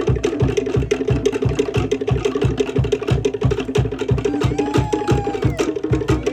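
Cook Islands drumming: fast, even rolls on wooden slit drums over a steady bass drum beat. A single held call rises and falls about halfway through.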